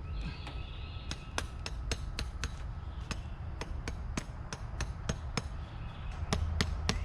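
Bobcat skid steer running with its steel over-the-tire tracks clanking: quick sharp metallic clicks, about three to four a second, over the machine's low engine rumble.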